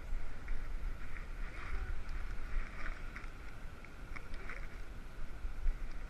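Jostling and rubbing noise from a GoPro in its housing riding on a walking dog's harness, with a steady low wind rumble on the microphone and a few light clicks.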